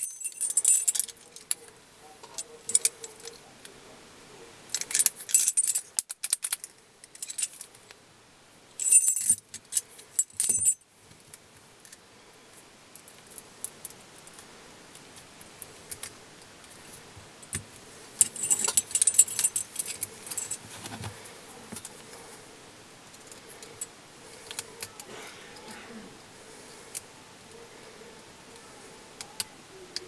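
A bunch of keys on a ring jangling against an Abus padlock as it is handled, in four short bursts, with quieter metallic clicks and handling in between.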